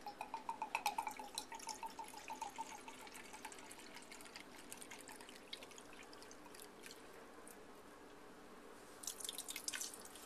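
Maker's Mark whiskey glugging out of its glass bottle into a measuring cup: a quick run of glugs over the first few seconds, then a thin trickle. Near the end, louder splashing as the liquid goes into a pot of barbecue sauce.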